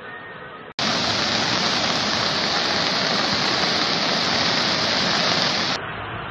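Heavy rain and a fast torrent of muddy floodwater: a loud, even rush of water that cuts in suddenly about a second in and stops abruptly near the end.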